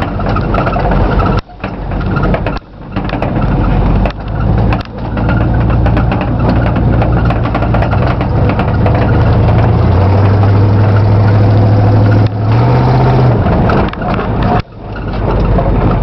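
Pickup truck engine heard from inside the cab while driving, pulling hard and then dropping off sharply about five times as the throttle is let off, each time building back up. In the middle it holds a steady low note that steps down a little and then back up shortly before it drops off again.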